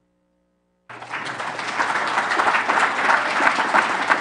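Audience applauding: many hands clapping, a dense crackle that starts about a second in and holds steady.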